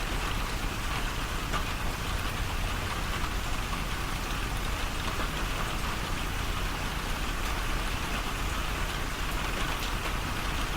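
Steady rain falling, an even hiss with scattered drops landing close by.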